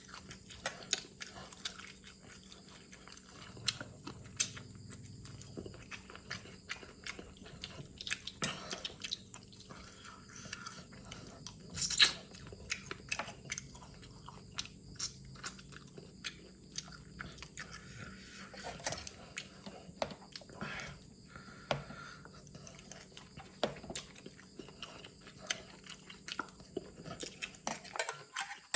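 A person chewing and biting mixed seafood salad close to the microphone, with wet mouth smacks and crunching and one louder crack about twelve seconds in.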